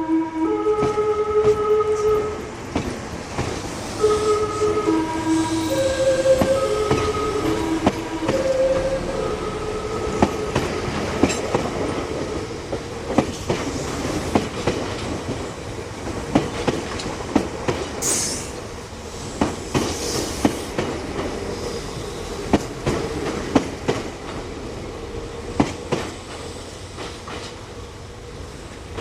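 Meitetsu electric train's music horn playing its tune, a string of pitched notes for about the first third. After the tune stops, the train's wheels keep clicking over the rail joints, with two brief high squeals past the middle.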